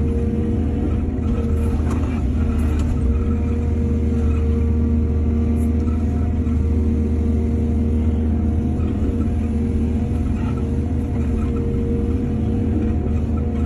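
Heavy diesel engine of an excavator running at a steady speed, with a few faint clicks over it.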